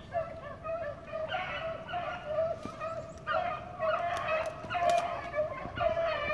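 A pack of hounds baying together on a rabbit's trail, several dogs' voices overlapping without a break.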